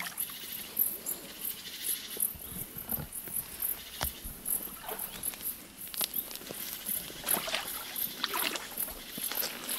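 Footsteps of someone in rubber waders stepping out of shallow water and pushing through dense brush, with twigs and leaves rustling and snapping irregularly. A high pulsing chirr runs steadily underneath.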